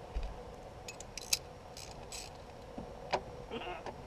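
A few light clicks and short scrapes, with a sharp click about three seconds in, from hand tools being picked up and handled.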